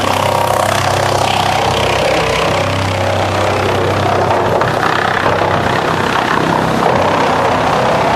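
ASILVA DFR4-550s drum chipper running steadily while its chain infeed conveyor feeds scrap boards and bark into the drum: a constant low hum under a dense, even grinding noise, with no separate knocks.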